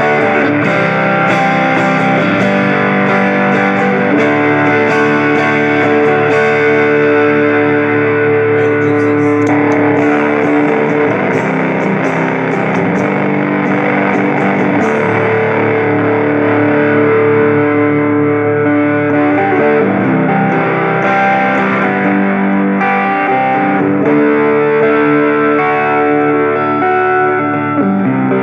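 Squier Stratocaster electric guitar played through a Tube Screamer-style overdrive pedal into a Fender Champion 20 amp, giving an overdriven, Marshall-like tone. Sustained chords ring out and change every second or two.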